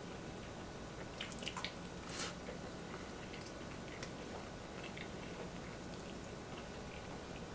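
Quiet eating sounds: metal forks clicking and scraping on wooden plates, with a short cluster of sharper clicks between one and two and a half seconds in and scattered small ticks afterwards, over a low steady room hum.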